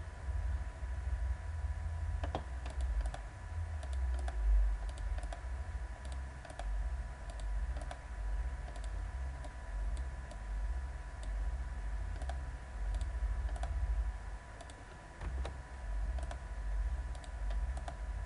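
Light, irregular clicking of a computer keyboard, a few keystrokes a second, over a steady low hum and a faint high steady tone.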